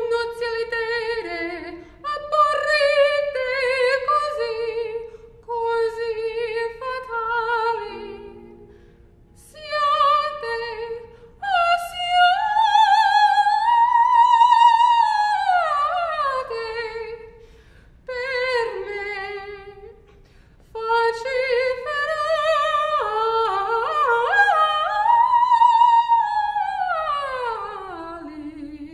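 A female classical singer singing unaccompanied in full operatic voice with a wide vibrato, in several phrases broken by short breaths. Two long phrases climb to high notes and slide back down, the last one falling to a low note near the end.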